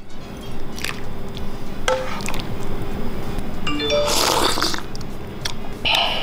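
Background music with a few short chime-like notes. About four seconds in, and again near the end, short noisy slurps of hot egg soup sipped from a metal spoon.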